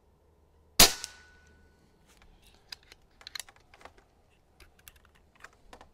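A single shot from a .22 Niksan Ozark TW pre-charged pneumatic air rifle, a sharp crack with a short ringing tail, about a second in. It is followed by a scatter of light clicks and knocks as the rifle is handled.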